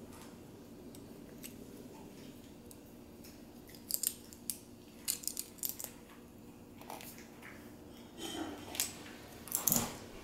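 Small plastic LEGO pieces clicking and tapping together as they are handled and snapped into place, in scattered sharp clicks. The busiest and loudest run of clicks comes near the end.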